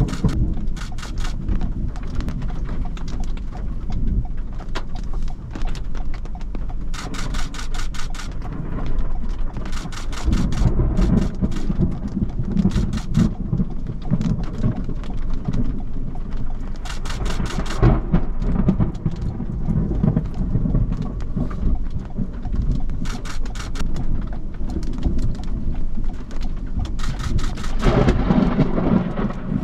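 Thunder from a nearby supercell rumbling low and continuously, swelling about ten seconds in and again near the end, while rain hits the car's windshield and roof in short bursts.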